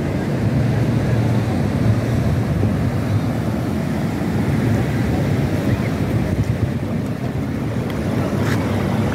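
Steady low rumble of wind buffeting the microphone, mixed with ocean surf washing around a pier's pilings.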